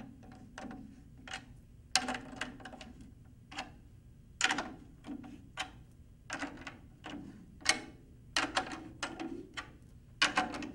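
Drum key turning the tension rods of a Pearl 12-inch tom one full turn at a time, heard as a string of irregular metal clicks and ticks. Some clicks carry a short low ring from the drum as the head is brought up to even tension.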